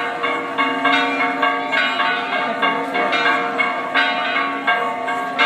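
Church bells pealing fast, several strikes a second, their tones ringing on and overlapping into a continuous clangour.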